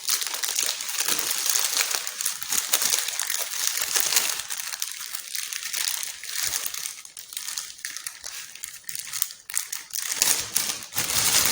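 Plastic packaging crinkling and rustling as it is handled and pulled off the speaker, with a dense, irregular crackle that eases off after the middle.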